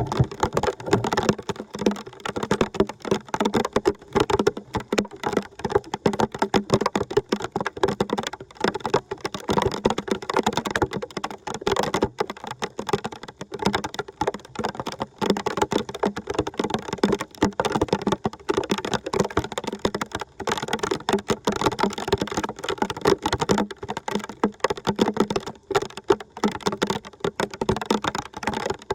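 Water splashing and trickling: a dense, steady patter of small crackles.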